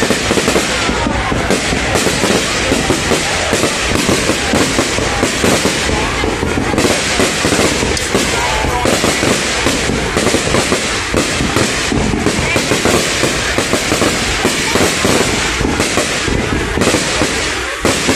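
Aerial fireworks display: many shells bursting in quick, overlapping succession with crackling, loud throughout.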